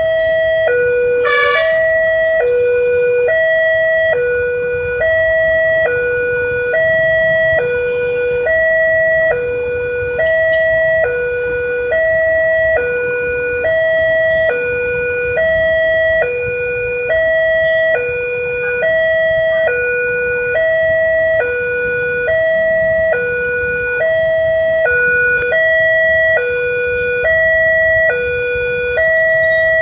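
Railway level-crossing warning siren sounding through a horn loudspeaker: a two-tone signal alternating steadily between a higher and a lower note, the warning given as a train approaches. Road traffic rumbles underneath, and a brief high chirp cuts in about a second and a half in.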